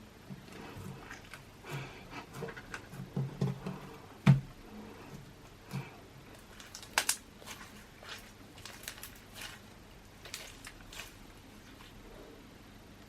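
Clear slime mixed with Orbeez being squeezed and poked by hand: irregular soft wet squishes and clicks, with a sharp pop about four seconds in and another about seven seconds in.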